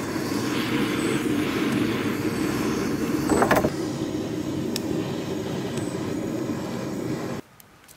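Handheld propane torch running with a steady hiss as it lights split kindling, briefly louder about three and a half seconds in and cutting off suddenly near the end.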